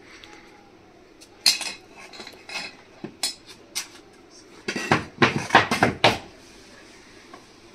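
Metal clanking and clinking: a few sharp, separate strikes over the first four seconds, then a quick flurry of them about five to six seconds in.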